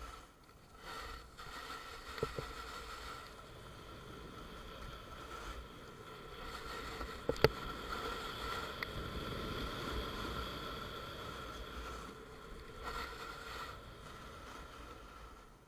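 Snowboard sliding and scraping over snow, a continuous hiss, with a small knock about two seconds in and a sharper one past the middle.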